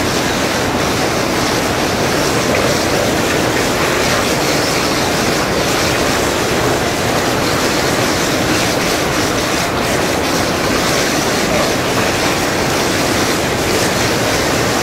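Whirlpool bath jets churning the water, a steady loud rushing.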